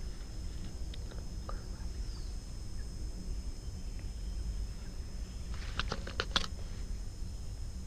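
A steady low rumble, then about six seconds in a short flurry of sharp clicks and splashes as a small hooked snakehead is swung out of the water on the lure.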